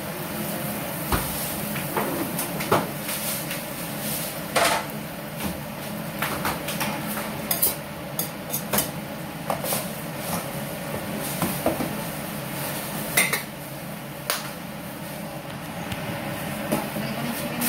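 A cooking utensil knocking and scraping against a steel wok as the pan is stirred, giving irregular clinks and clatters over steady background noise.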